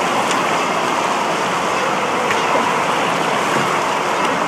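Steady rushing of running and splashing water, the constant din of an indoor waterpark.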